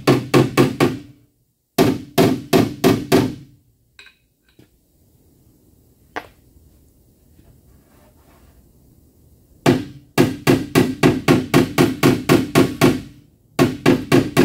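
Body hammer striking a Ford Edge body panel backed by a dolly, working a dent back to its proper contour. The strikes come in quick runs of about six a second, with a long pause in the middle and a single tap about six seconds in.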